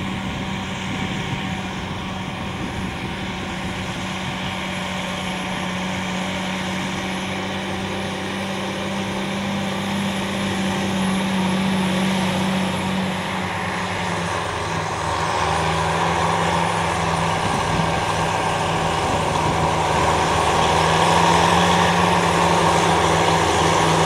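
Tractor engine running steadily under load while it pulls a two-axle slurry tanker with a soil injector. The engine note drops slightly about two-thirds of the way through, and the sound grows louder toward the end.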